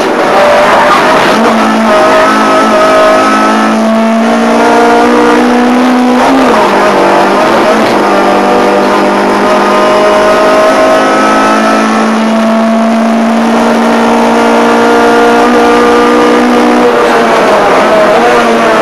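Ford Fiesta 1.4 Zetec four-cylinder race engine, loud inside the cabin under hard acceleration: the revs climb slowly, drop sharply about six seconds in, climb again and drop once more near the end.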